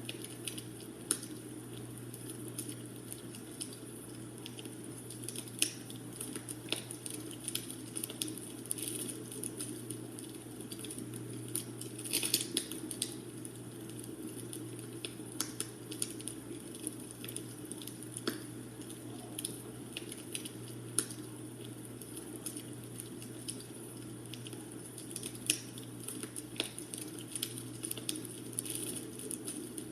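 Wood fire burning in a fireplace, crackling with irregular sharp pops over a steady low rumble, with a brief flurry of pops about twelve seconds in.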